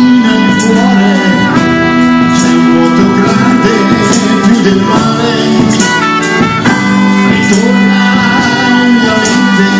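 Live band playing a song: electric and acoustic guitars, timbales and a lead voice at the microphone, with a trumpet in the mix.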